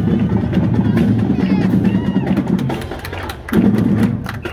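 Marching band drumline playing a fast cadence on snare and bass drums; it drops off about three seconds in, comes back in a short loud burst, then fades.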